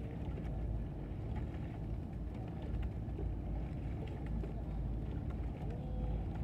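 Motor launch's engine running steadily at low speed on the water, a constant low rumble.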